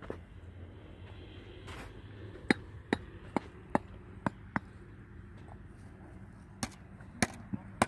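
A series of sharp, short knocks, about ten in all, in two groups: six in quick succession, then a pause, then four more.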